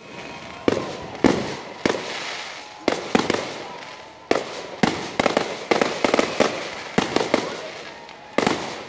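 Aerial fireworks shells bursting overhead: about fifteen sharp bangs at irregular intervals, coming closer together in the middle, each trailing off, with crackling between them.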